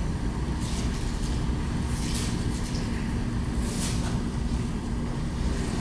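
Conference-room background noise: a steady low rumble with a faint steady hum. A few short rustles come through it.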